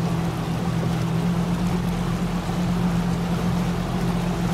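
A boat motor running steadily, a constant low hum with no change in pitch.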